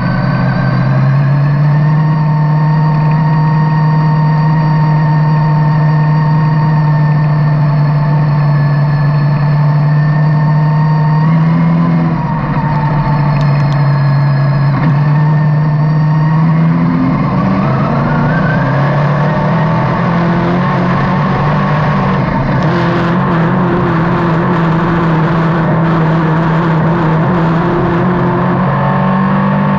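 Dirt modified race car's engine heard from inside the cockpit, running hard on a lap: its note drops about twelve seconds in as the throttle comes off for a turn, then climbs again as it pulls back up to speed. A rougher rushing noise joins in over the second half.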